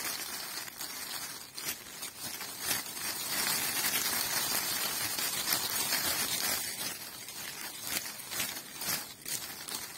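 Poplar twig shaken by hand, its leaves giving a dense, crackling rustle. The rustle grows louder about three seconds in, then eases a little near the end.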